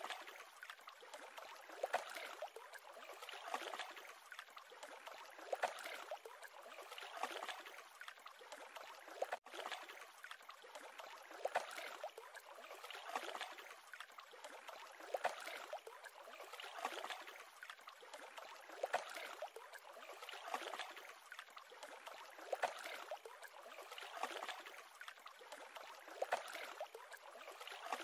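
Small waves lapping on a lake, a soft wash of water that swells every second or two.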